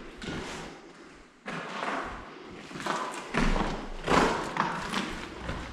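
Footsteps and scuffs on a hard floor, with a few thuds at irregular intervals.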